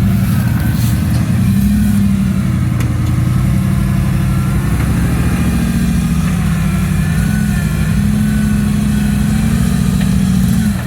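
Off-road vehicle engine running hard and revving up and down as it climbs a steep, rocky trail hill.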